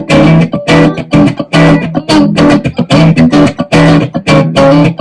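Ibanez AZ Essentials electric guitar with single-coil pickups playing a rhythmic run of short, choppy chord stabs, about two to three a second with brief gaps between them.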